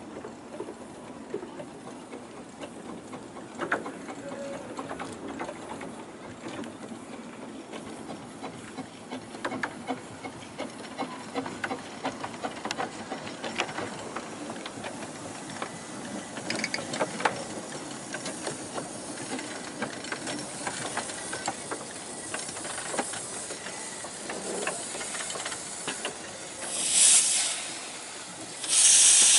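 Fairbourne Railway's miniature steam locomotive No. 759 moving slowly, a low rumble with many light clicks and knocks. About 27 s in there is a short hiss of steam, and near the end a loud, steady hiss of steam starts up.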